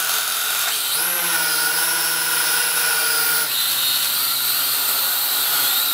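JJRC H8C quadcopter's small electric motors and propellers whining steadily. The pitch steps up about a second in and drops again about halfway through as the control sticks are moved.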